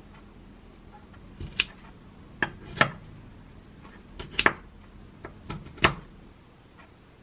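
Kitchen scissors snipping through cucumber kimchi in a ceramic bowl: a string of about seven sharp snips and clinks at uneven intervals, the loudest near the middle and near the end.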